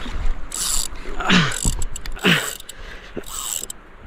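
Spinning reel, a Daiwa Certate 10000 SW, wound in short spurts, its gears whirring. The spurts come roughly once a second, each with a quick falling swish, as a lure is worked back in jerks.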